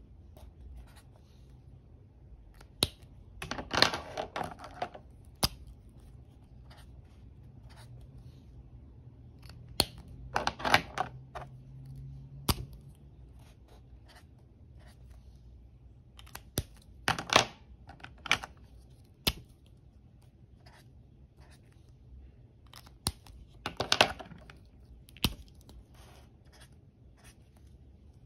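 Staedtler metallic brush pens being handled: sharp clicks as the plastic caps snap off and back on, and four short bursts of pen-on-paper and handling noise, about a second each, as swatch strokes are drawn on a paper card.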